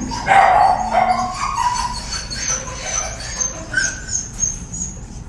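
A dog whining and whimpering in a string of short high-pitched cries, the excited whining of a dog greeting a familiar person.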